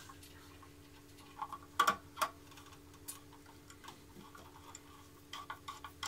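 Small light clicks and taps of hands and a screwdriver working wires into an alarm expander board's screw terminals: a few scattered clicks, then a quick run of them near the end, over a faint steady hum.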